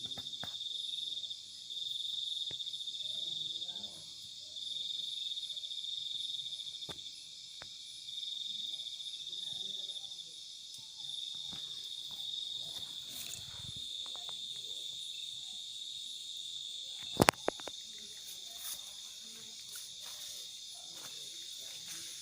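Night insects trilling in a steady high-pitched chorus that swells and fades every second or two. A single sharp, loud click cuts in about seventeen seconds in.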